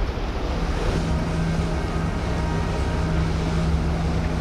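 Passing cruise ship running with a steady low drone, joined about half a second in by a steady hum, over wind buffeting the microphone and the wash of water.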